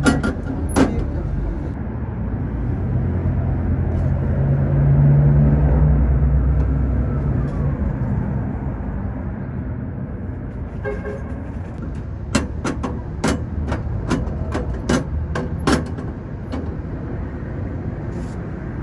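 A heavy road vehicle's engine rumbling past, swelling to its loudest about five seconds in and then fading. In the second half comes a run of sharp clicks and knocks.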